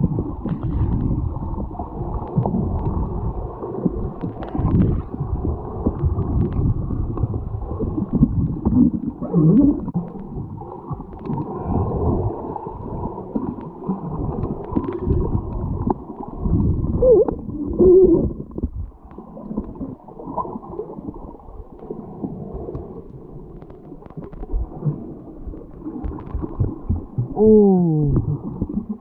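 Underwater sound picked up through a waterproof camera housing: a dense, muffled rumble and gurgle of moving water and bubbles. There are a few short squeaky tones that slide down in pitch, twice in the middle and once near the end.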